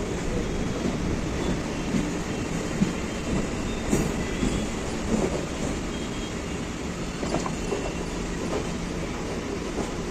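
Train running along the track with a steady rumble, scattered clicks of the wheels over the rail, and brief faint high wheel squeals.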